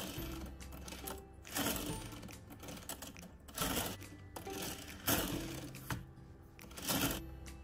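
Plastic LEGO coaster cars rolling and rattling along a plastic roller-coaster track as they are pushed around it. The clatter swells and fades every second or two.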